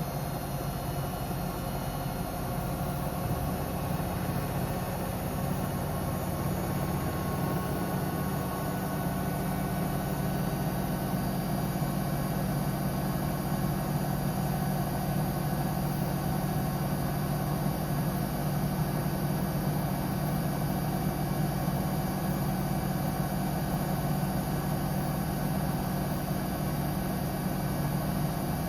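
Samsung Eco Bubble digital inverter washing machine on a test spin: the drum and motor run with a steady low hum that slowly grows a little louder.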